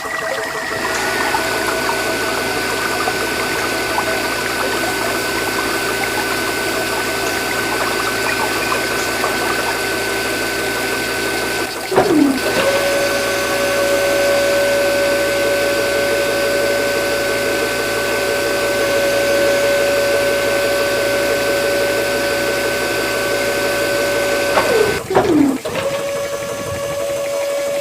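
A small DC motor, the model's mini submersible water pump, runs with a steady whine over a wash of moving water. About twelve seconds in and again near the end, its pitch drops as it winds down and stops briefly, then it starts again at a different pitch.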